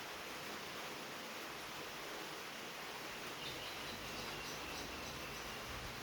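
Soft rain falling steadily on a tin roof, heard as an even hiss. About halfway through, a bird chirps a quick series of short high notes.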